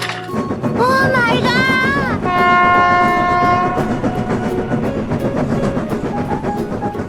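Train horn sounding twice, first a short wavering blast about a second in, then a longer steady blast. Under it a train runs on the rails with a rumble and a regular clatter of wheels over rail joints.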